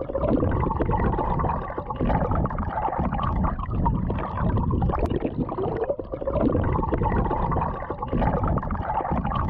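River current heard underwater through a submerged camera housing: a muffled rumbling and gurgling with the high end cut off, swelling and ebbing.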